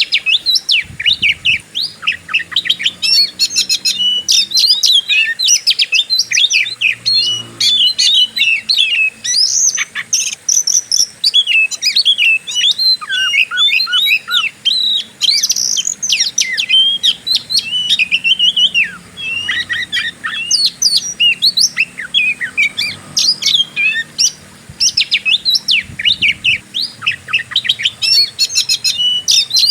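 Oriental magpie-robin singing a fast, unbroken, varied song of sharp chirps, trills and whistles in the aggressive 'fighter' style, the kind of song used to provoke a rival kacer into singing.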